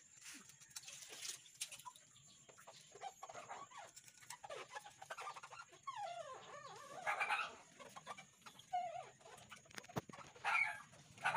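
Chickens clucking now and then, short calls gliding in pitch, with a few faint sharp metal clicks.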